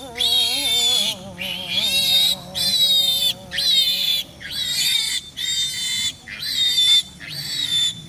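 A high, buzzy animal call repeated about nine times, roughly once a second. Under the first half a voice sings a long, wavering chant that fades out about four seconds in.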